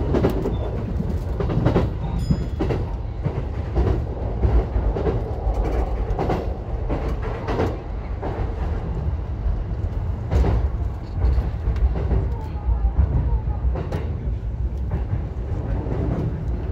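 JR Keihin-Tohoku Line E233-series electric commuter train running on the rails: a steady rumble of wheels and running gear, with irregular clacks as the wheels pass over rail joints.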